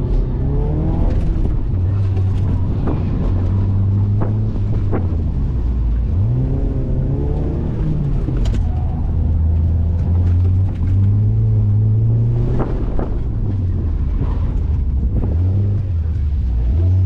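Mazda MX-5's four-cylinder engine heard from the open cockpit, its pitch holding steady, then climbing as it revs up and stepping down with gear changes; it revs up about six seconds in, again about eight seconds in, and near the end.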